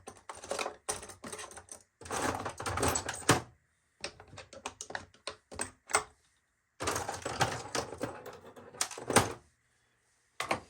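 Small hand tools clattering and clicking as they are set into and shuffled around a plastic toolbox drawer organizer: bursts of rapid clicks and rattles broken by a few short silent gaps.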